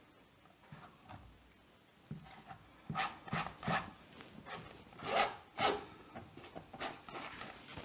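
A steel palette knife scraping and spreading acrylic paint across a canvas in a series of short, irregular strokes, starting about two seconds in, with the loudest stroke about five seconds in.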